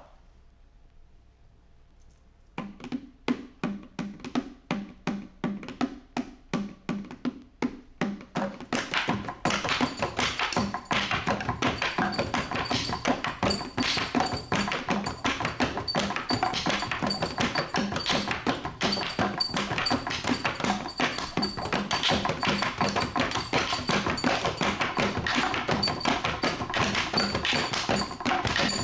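Rock band music: after a short near-silent gap, dry percussive strikes start a steady beat at about three a second, and at about nine and a half seconds the full band of drums, bass and guitars comes in densely.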